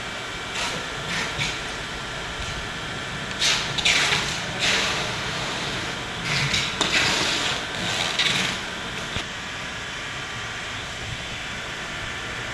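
Scraping and rustling handling noises from bicycle pedal fitting, coming in short bursts a few seconds in and again through the middle, over a steady background hiss.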